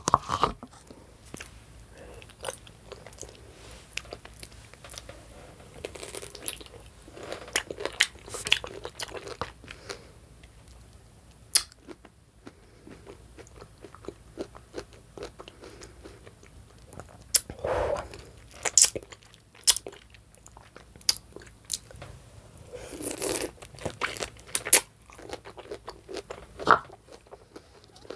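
Close-miked biting and chewing: crisp, crunchy bites and chewing of someone eating, with many small sharp clicks between them and louder bursts of crunching now and then.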